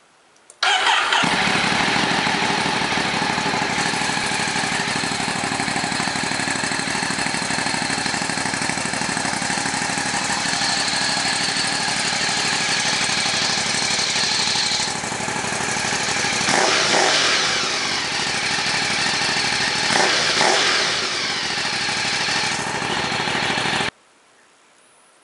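Ducati 848's L-twin engine running through a MIVV Suono exhaust with the dB killer fitted, idling steadily. It is revved up and back down around two-thirds of the way through and again a few seconds later. The sound starts and stops suddenly.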